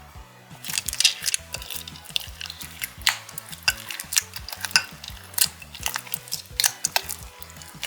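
Slime being worked and squished, giving irregular sticky clicks and crackling pops, over soft background music.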